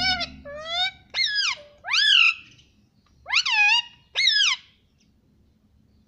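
Indian ringneck (rose-ringed) parakeet vocalizing: a run of short, loud, pitched calls that swoop up and down, four in quick succession, then a pause and two more.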